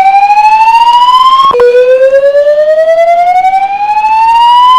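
Fire alarm voice evacuation system sounding its whoop evacuation tone between spoken announcements. The loud tone rises steadily in pitch, drops back sharply about a second and a half in, and starts rising again.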